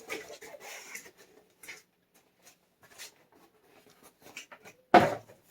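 Handling of a cardboard mystery box and its packaging: rustling, scraping and light clicks as it is opened, with one loud knock near the end.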